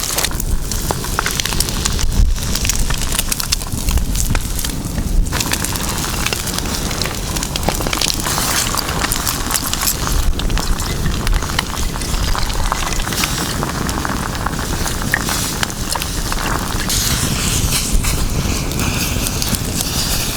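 Campfire crackling, with many small irregular pops and snaps.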